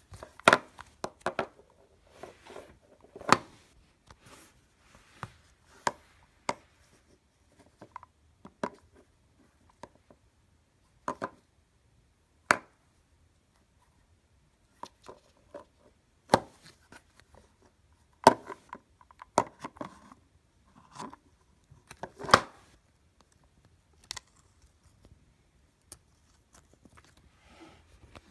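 Hard clear-plastic EarPods case being handled and pried open: irregular sharp plastic clicks and taps, a dozen or so louder ones among quieter handling.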